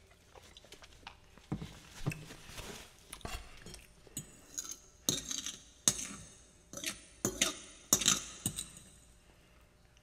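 Close-miked sipping through a straw from a plastic tumbler, followed by a run of sharp clinks and knocks as the cup and tableware are handled, loudest between about five and eight and a half seconds in.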